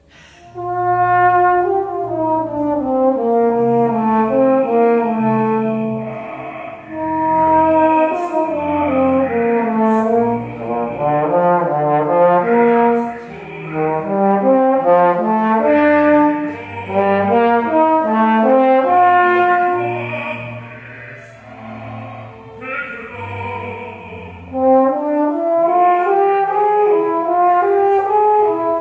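Solo trombone playing unaccompanied: a melodic passage of held and moving notes in phrases, with short breaks for breath. It enters about half a second in, and there is a softer stretch about twenty seconds in before it grows louder again.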